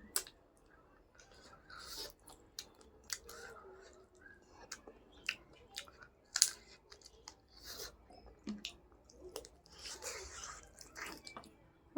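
A person chewing food close to the microphone, with irregular wet mouth clicks and short crunchy bites.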